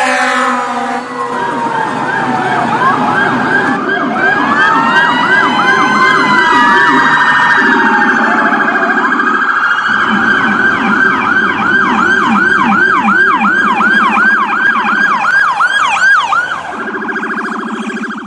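Electronic emergency-vehicle siren cycling through its tones: slow rising-and-falling wails first, then a fast warble, then a rapid yelp of about two to three sweeps a second, switching to a lower steady tone near the end.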